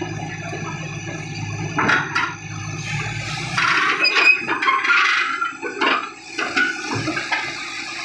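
A heavy diesel engine running with a steady low hum, then from about three and a half seconds a loud rushing, hissing noise broken by several sharp knocks and clanks as a Komatsu bulldozer climbs onto a self-loader truck's steel deck.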